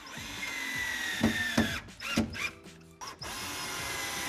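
Cordless drill driving screws through the top flange of a wall panel into wood studs: the motor runs steadily for about two seconds with a whine that sags slightly in pitch, a few sharp clicks follow, then the drill starts again about three seconds in.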